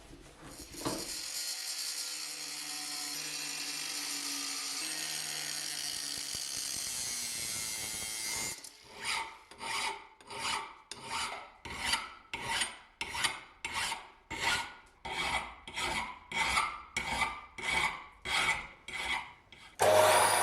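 A steady hissing scrape for about eight seconds stops abruptly. Then come rhythmic back-and-forth hand-filing strokes on the axe, about two a second.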